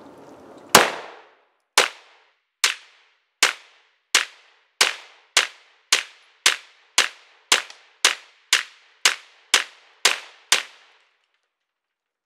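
Polymer 80 Glock 19-pattern 9mm pistol fired 17 times with brass-cased Sellier & Bellot ammunition, each shot sharp with a brief ringing tail. The shots come about a second apart at first and quicken to about two a second. The whole magazine cycles with no failure to feed.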